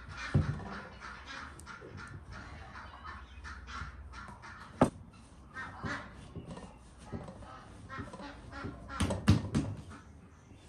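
Geese honking repeatedly, with several sharp knocks and thumps of dough being kneaded and worked with a metal scraper on a wooden board, the loudest a cluster of knocks near the end.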